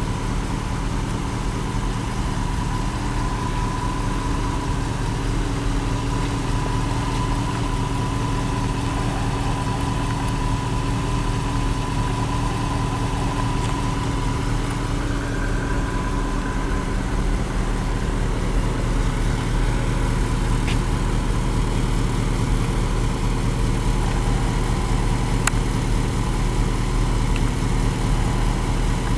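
1972 Ford LTD's 351 Windsor V8 idling steadily.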